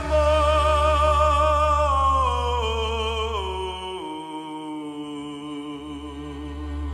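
Choir and orchestra music: voices hold a note with vibrato, then step downward over a couple of seconds and settle on a lower held note. A sustained low bass underneath drops out briefly about four seconds in and returns near the end.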